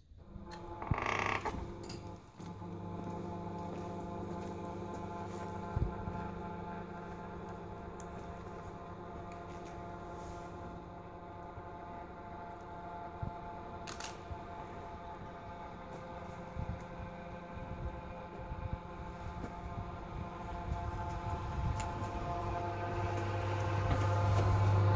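A steady mechanical hum made of several fixed tones, getting louder toward the end. A brief clatter comes about a second in, and a single sharp click about fourteen seconds in.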